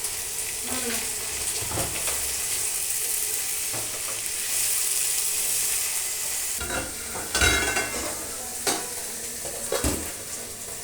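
Button mushrooms sizzling as they dry-fry in a kadhai, with a spatula stirring and knocking against the pan several times.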